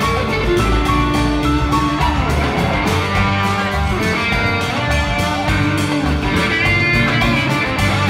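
Live rock band jamming: a lead electric guitar plays held and bending notes over a steady drum beat.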